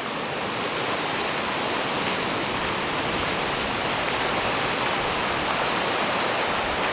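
River rapids rushing through a walled channel: a steady, dense wash of white water.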